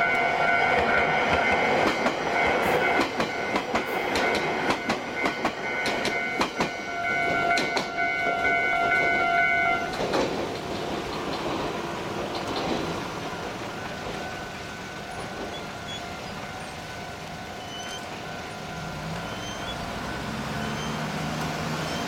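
Iyotetsu suburban electric train running through a level crossing, its wheels clicking over the rail joints, with a steady high-pitched tone over the top. The tone cuts off about ten seconds in as the train clears, and the sound drops to quieter road traffic.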